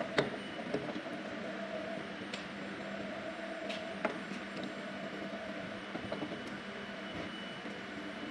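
Steady hum of a CNC milling machine at rest during a tool change, with a few light metallic clicks and clinks scattered through it.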